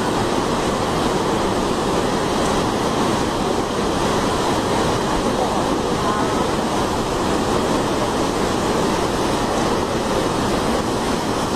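Fast-flowing water rushing steadily, a loud, even noise that does not change.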